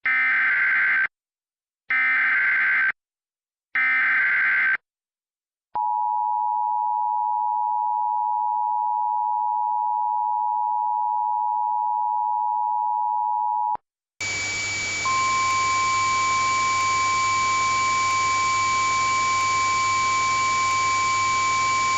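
Emergency Alert System tones: the SAME digital header as three one-second data bursts, then the two-tone EAS attention signal (853 and 960 Hz) held steady for about eight seconds. It cuts off, and a steady hiss with a high whine follows, joined about a second later by a single steady tone.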